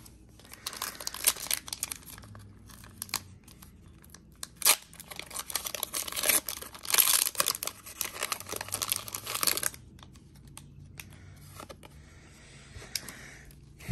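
Foil Pokémon booster pack wrapper being crinkled and torn open: a run of crackling, tearing rustles that stops about ten seconds in, followed by faint card handling.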